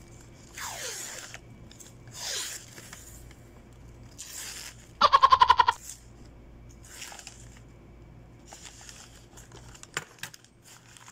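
Wrapping paper rustling and crinkling in short bursts as a bouquet is handled and wrapped. About five seconds in comes a loud, rapid rattling buzz lasting under a second, the loudest sound, and a sharp click follows near the end.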